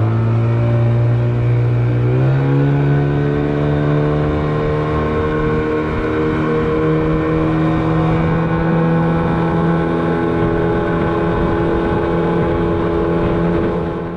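Boat motor running under way. Its pitch climbs about two seconds in as it speeds up, then it holds a steady high speed with a slight further rise.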